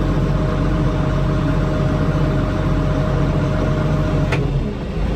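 Case 2294 tractor's diesel engine running steadily, heard from the cab, with a thin steady whine over it. About four seconds in there is a sharp click, the whine stops and the engine sound drops.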